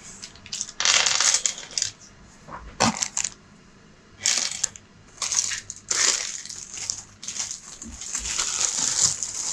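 Thin plastic zip bag crinkling in repeated bursts as a hand rummages in it, with the game chips inside shifting and clicking. The rustling grows denser toward the end.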